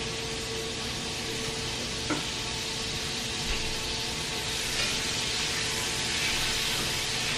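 Butter sizzling steadily as it melts in a hot skillet preheated in a 425-degree oven, nudged around with a spatula, with a few light taps against the pan.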